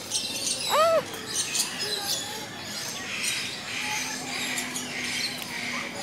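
Birds chirping and squawking, many short high calls overlapping, with one louder call about a second in that rises and falls in pitch.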